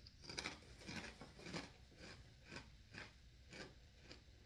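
Quiet crunching of a Ritz Toasted Chip being chewed, about two crunches a second, growing softer as the chip is chewed down.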